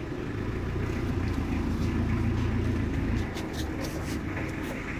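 Pickup truck engine and road noise heard from the open cargo bed while the truck drives off, a low rumble that grows heavier for a couple of seconds as it pulls away, then eases. A few short ticks from the metal bed come near the end.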